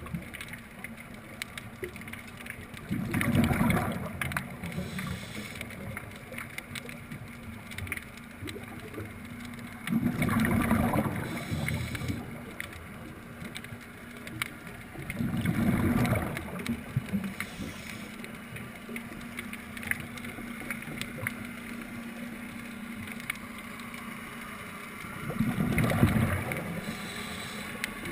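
Scuba regulator exhalations heard underwater: four bubbling bursts, each lasting one and a half to two seconds, a few seconds apart, over a steady hiss dotted with faint clicks.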